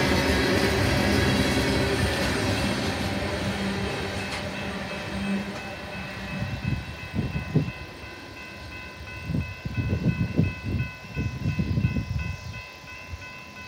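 Freight cars of an empty tank-car train rolling past with wheel rumble and clatter, fading over the first few seconds as the train moves away. After that a grade-crossing bell rings steadily with an even pulse.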